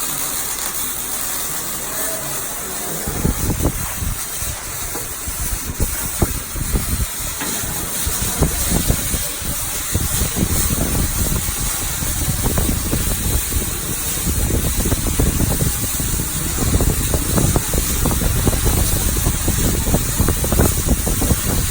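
Arc welding: a steady hiss, then about three seconds in the arc strikes and a dense, irregular crackle and sputter runs on as a weld bead is laid.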